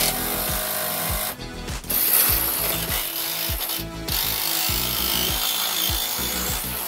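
Background instrumental music with a steady kick-drum beat, over a continuous rough mechanical rasping noise.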